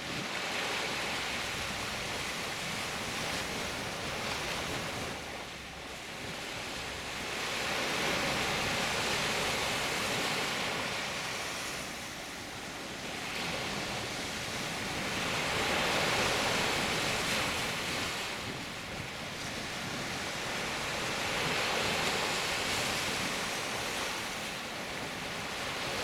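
Small Baltic Sea waves breaking and washing up a sandy beach, a steady surf that swells and fades about every six to seven seconds.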